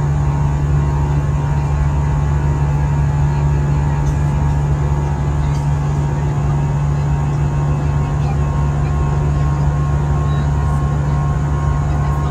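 Steady cabin drone of an Airbus A320 in flight, heard from a window seat: engine and airflow noise as one even, low sound with a faint steady whine above it.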